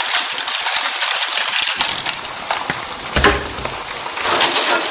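Cooked snails in their shells clattering as they are tipped from a colander into a frying pan of onions, a dense run of small clinks over frying sizzle. There is one dull knock about three seconds in.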